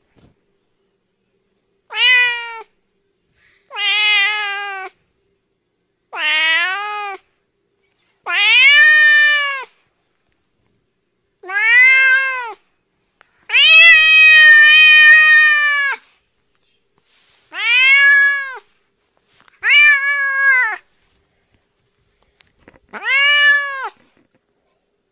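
Domestic cat meowing: nine separate meows with short silences between, each rising then falling in pitch. The longest, about two and a half seconds, comes around the middle.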